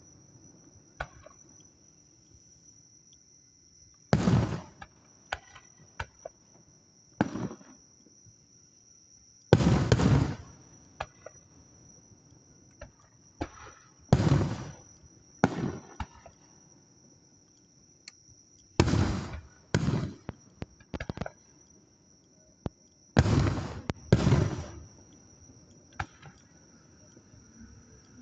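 Aerial fireworks shells bursting: about nine loud booms at irregular intervals of one to five seconds, with smaller sharp pops and crackles between them. A steady high-pitched thin tone runs underneath.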